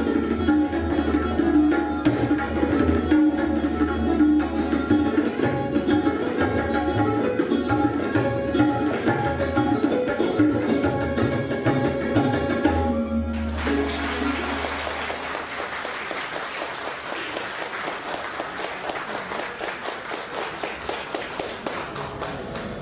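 Sarod and tabla playing together, with deep bass strokes from the tabla's larger drum under the plucked sarod melody. The music stops suddenly about halfway through, at the end of the piece, and audience applause follows.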